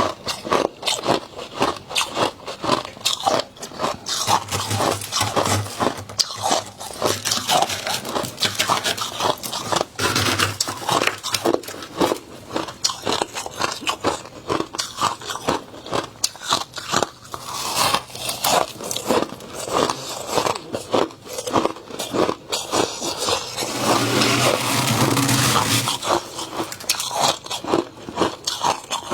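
Close-up biting and chewing of fluffy freezer frost: a dense, irregular run of crisp crunches with hardly a pause, thickening into a steadier stretch of crunching near the end.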